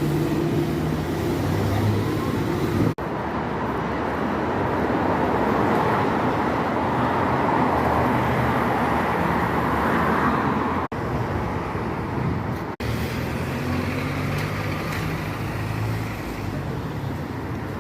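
Road traffic noise: a steady hum of vehicle engines and tyres, broken by abrupt cuts three times.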